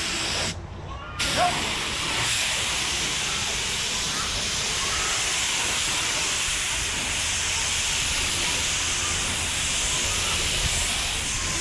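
Gravity-feed spray gun hissing steadily as it sprays a coat of primer: a short burst, a brief stop, then one long unbroken pass.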